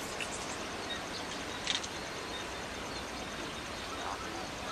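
Steady outdoor background noise with a faint high chirping that repeats evenly, and a few short clicks at the start and again just under two seconds in.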